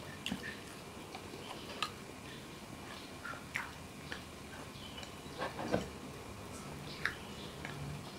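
A person chewing and swallowing a mouthful: scattered small mouth clicks and smacks, a few louder ones about two-thirds of the way through.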